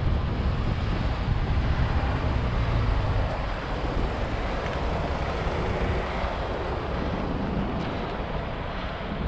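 Steady wind rush over the microphone of a camera on a moving bicycle, mixed with road traffic noise.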